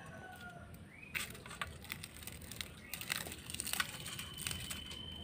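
Dry, charred leaf wrappers crackling and crunching as they are broken apart by hand around leaf-roasted fish, in scattered small snaps and rustles.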